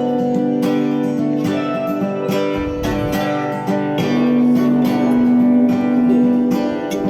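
Guitar music: a guitar strummed in a steady rhythm, about two strokes a second, with a long held note over it in the second half.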